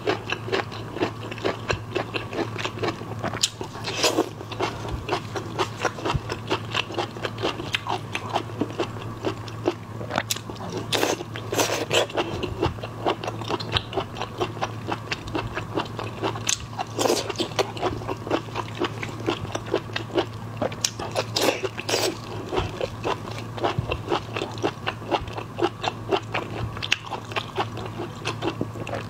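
Close-miked chewing and biting of marinated raw seafood: a dense, continuous run of small wet clicks and crunches, with several louder bites spaced through. A faint steady low hum lies beneath.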